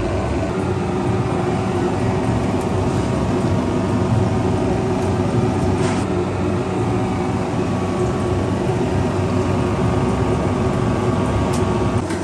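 Steady hum of running food-processing machinery, several constant motor tones with no change in pace, and a couple of faint clicks.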